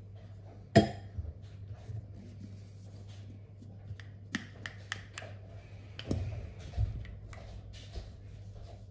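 Small kitchen handling sounds: one sharp click about a second in, then light ticks and taps as a plastic squeeze bottle of white sauce is squeezed over a wrap's filling, and a few soft thumps later, over a low steady hum.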